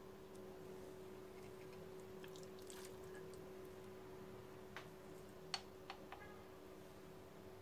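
Faint room tone with a steady low hum and scattered light clicks. A loose run of ticks comes about two to three seconds in, then a few sharper single clicks, the loudest about five and a half seconds in.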